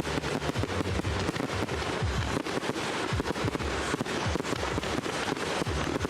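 Fireworks display: a rapid series of sharp bangs and crackles, several a second, from exploding aerial shells.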